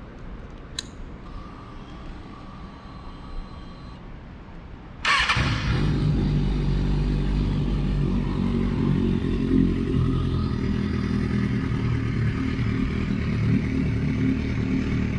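Kawasaki Ninja ZX-6R inline-four motorcycle engine. After a click and a faint high whine, it fires up about five seconds in and settles into a steady idle.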